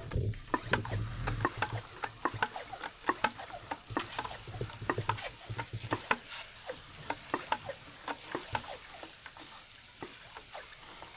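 Hand-pump garden sprayer's wand spraying liquid onto a boat trailer's wheel hub and brakes: an irregular crackling, spattering hiss.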